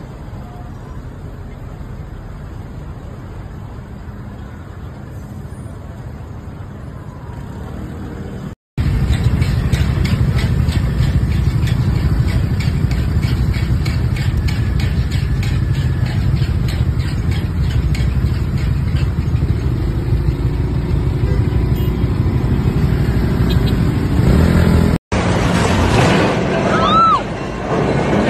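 Road traffic noise: a moderate steady street hum, then after a sudden cut a louder steady rumble of idling scooter and car engines and wind. Near the end another cut brings a different street with a few short high squealing glides.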